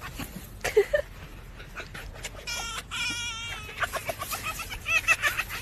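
Red fox making high-pitched warbling, cackling calls in short bouts, the loudest about halfway through and again near the end, while its belly is scratched, with the rustle of it squirming in dry leaves.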